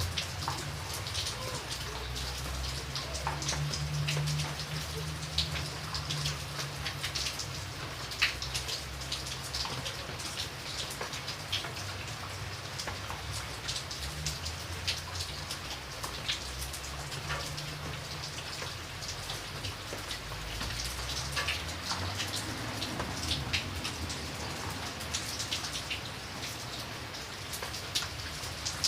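Rain falling steadily, with many individual drops heard as short, sharp ticks over a continuous hiss. A low hum comes and goes beneath it.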